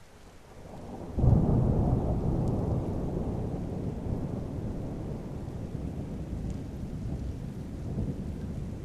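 A thunderclap about a second in, followed by a deep rumble that slowly fades, over steady rainfall.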